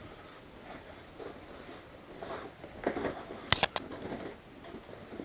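Camouflage suit fabric rustling as it is handled in a cardboard box. There is a quick cluster of sharp clicks about three and a half seconds in.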